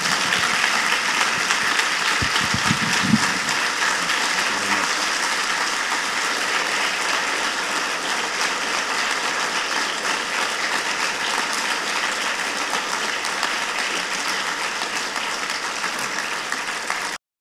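Audience applauding, a dense steady clatter of many hands clapping, with a few low thumps about two to three seconds in; it cuts off suddenly near the end.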